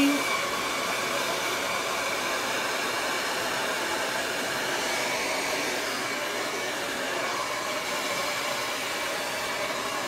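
Handheld hair dryer running steadily: an even rush of air with a faint steady whine.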